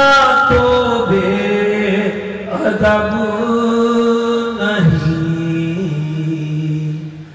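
A man's voice singing Urdu devotional verse in long, slow held notes that step up and down in pitch, trailing off near the end.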